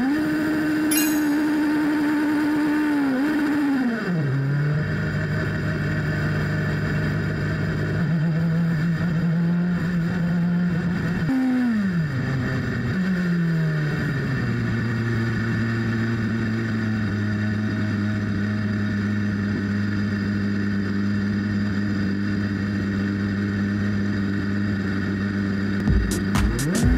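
Turbocharged Honda four-cylinder engine of a Super Formula single-seater, heard from on board, running at steady held revs. The note steps down with a falling glide about four seconds in and again around twelve seconds, then holds a lower steady tone. Near the end it is blipped back up with a quick run of pulses.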